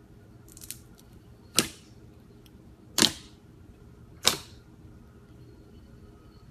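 Slime being pressed and played with, giving three sharp clicking pops about a second and a half apart, with a few fainter clicks before the first.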